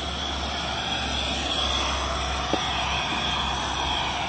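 Steady rushing hiss of steam from a running wood-fired fire-tube steam boiler under pressure, with one small click about two and a half seconds in.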